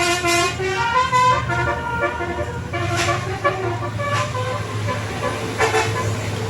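Bus telolet horn playing a melody of stepped, held tones, mostly in the first half, over the steady low hum of the bus's engine.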